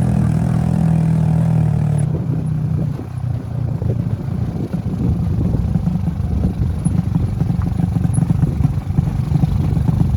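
Motorcycle engine running under a rider: a steady hum of low engine tones for about two seconds, then an abrupt change to a rough, uneven rumble.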